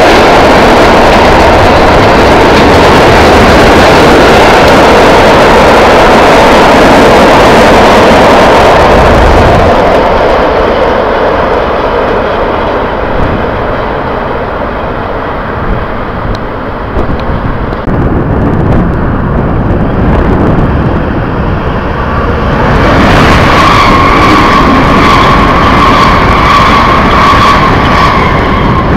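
Container freight train rolling past, its wagon wheels loud on the rails for the first ten seconds or so, then fading as the last wagons pull away. About two-thirds of the way in, a steady high whine comes in with a fresh wash of noise.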